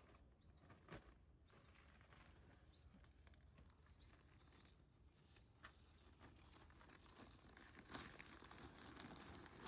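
Near silence outdoors, with a few faint clicks and a soft rustling that grows louder over the last couple of seconds.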